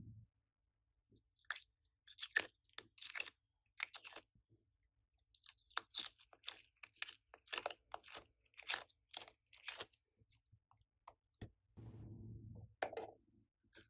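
Slime being handled and squeezed, giving irregular sticky crackles and little pops, with a softer squish near the end.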